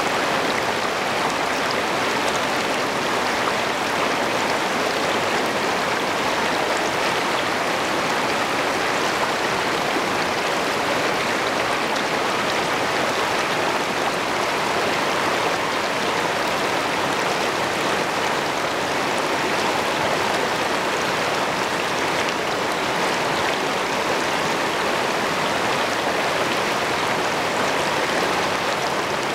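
Shallow river rapids rushing over rocks close to the microphone: a steady, loud, unbroken roar of running water.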